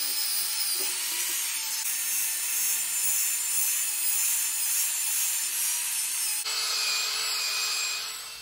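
Angle grinder spinning an 800-grit wet diamond polishing pad over a marble tabletop: a steady motor whine over the hiss of the pad rubbing the wet stone. The tone jumps abruptly twice, and the sound fades out near the end.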